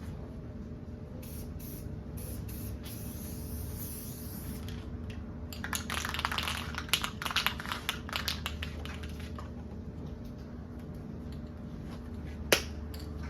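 Aerosol spray-paint can spraying on and off, a hiss that is heaviest in the middle, with a sharp click near the end.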